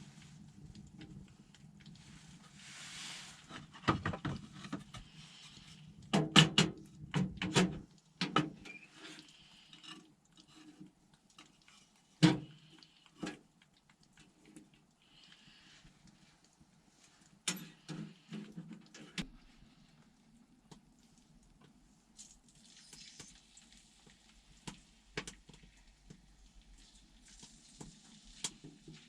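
Irregular knocks, clicks and light clatter from objects being handled, with a cluster of sharp knocks a few seconds in, a single loud knock near the middle, and soft rustling hiss in between.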